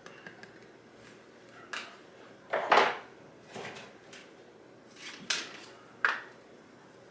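A series of separate knocks and clatters from kitchen cupboards, drawers and containers being handled, about six in all. The loudest comes just under three seconds in.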